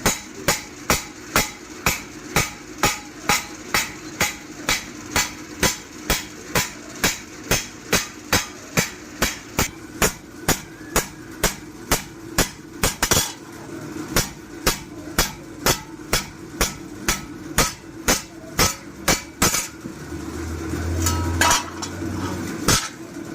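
Hammer striking a forage-machine (chaff-cutter) blade on an anvil in a steady rhythm, about two to three blows a second. It pauses briefly about halfway through and the steady blows stop near the end, leaving a few scattered strikes over a low hum.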